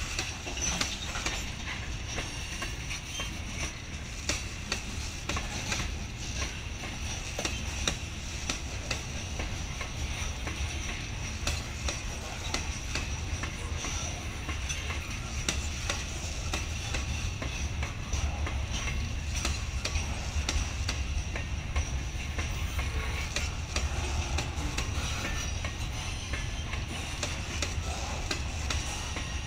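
A long freight train's cars rolling past. There is a steady low rumble of steel wheels on rail, with frequent clicks and clacks as the wheels cross the rail joints.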